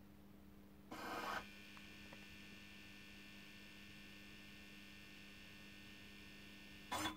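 Electrode puller running with a steady mains hum; about a second in, a short mechanical whirr as the heating filament assembly moves up around the glass capillary. A faint steady high whine follows while the filament glows and heats the glass, then another short mechanical burst near the end as the heating stage ends and the pull begins.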